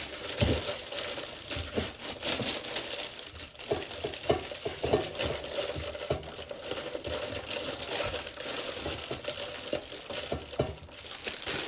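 Packaging of a frozen quesadilla crinkling as it is handled and opened, an irregular crackle with many small clicks.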